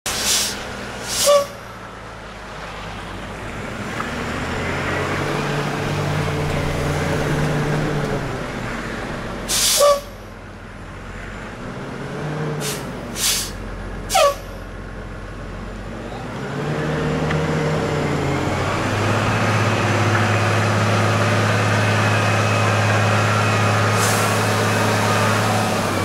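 Orion VII hybrid-electric city bus straining to climb a snowy hill with little grip: its drivetrain revs up and eases off several times, then holds a steady drone from about two-thirds of the way in. Short, sharp air-brake hisses, the loudest sounds, come several times.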